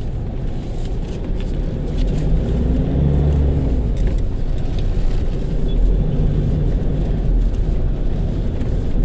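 Vehicle engine and road rumble heard from inside the cab as it drives through traffic, the engine note growing louder about two seconds in as it picks up speed.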